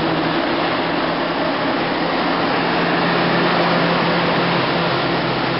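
Demag H285S hydraulic mining shovel running steadily: an even, loud machine noise with a steady low hum from its engines and hydraulic pumps.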